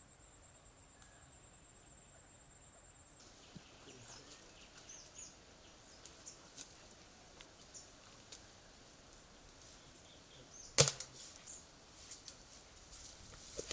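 Quiet forest ambience: a steady insect trill for about the first three seconds, then faint bird chirps and soft rustling of leaves and twigs in undergrowth. One sharp, loud crack comes about eleven seconds in, followed by a few smaller snaps.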